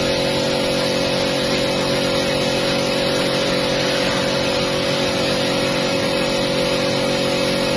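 A motor or engine running at a steady speed: a constant, even hum that does not change.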